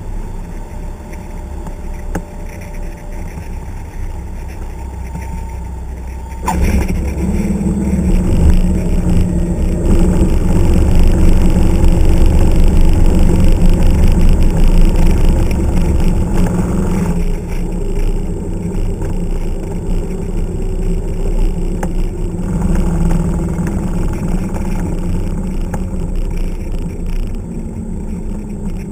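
Single-engine light airplane's piston engine and propeller, heard from inside the cockpit while taxiing. The engine note steps up sharply about six and a half seconds in, stays at its loudest for several seconds, then eases back a little.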